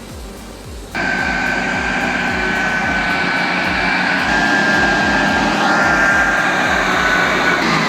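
A loud engine running steadily with a high whine, cutting in abruptly about a second in.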